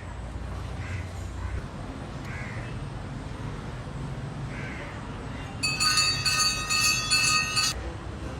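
Crows cawing now and then, and past the middle a metal bell rung rapidly for about two seconds, the loudest sound, stopping abruptly.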